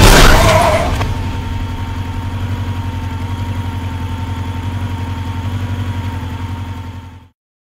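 A loud crash-like burst right at the start, then a vehicle engine idling steadily with a single high ringing tone held over it. Both cut off suddenly near the end.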